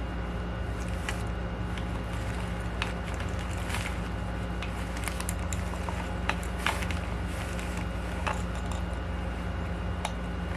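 Scattered clicks and taps of plastic parts being handled and fitted into a housing, over a steady hum.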